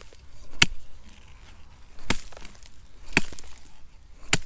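A metal hand digger stabbing into dry, lumpy soil, four sharp strikes about a second apart, as a metal detecting find is dug out.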